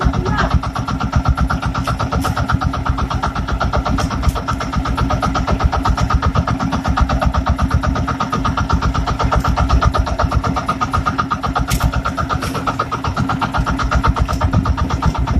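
Small outrigger fishing boat's engine running steadily with a fast, even pulsing beat.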